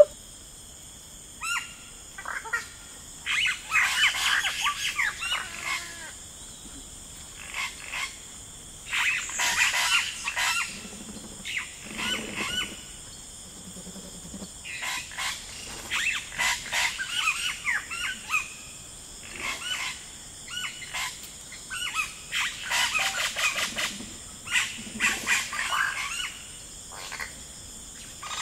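Forest ambience of birds chirping in repeated clusters of quick calls every few seconds, with a few lower croak-like calls, over a steady thin high whine.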